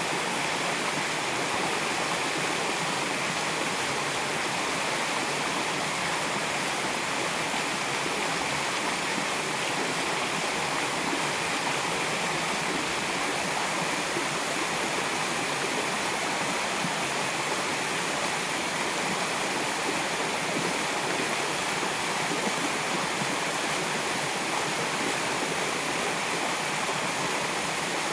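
River water rushing, a steady even noise with no breaks.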